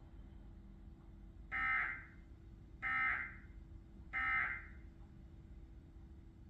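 Emergency Alert System End of Message signal: three short bursts of SAME digital data tones, about 1.3 seconds apart, marking the end of the alert.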